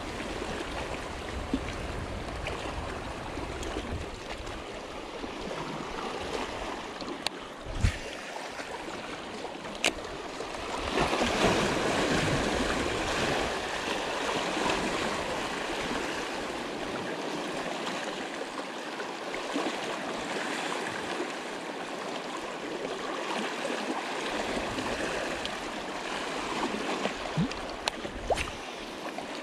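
Small sea waves washing and lapping around shoreline rocks, swelling louder about eleven seconds in, with a few sharp clicks.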